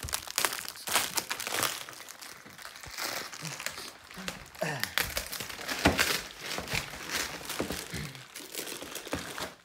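Packaging wrap crinkling and rustling as it is handled and pulled about, in a run of irregular crackles that is loudest about six seconds in.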